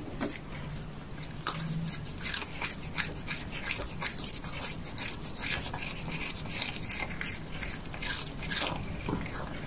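A cat chewing cooked shrimp: quick, irregular crisp bites and mouth clicks, several each second, over a faint low hum.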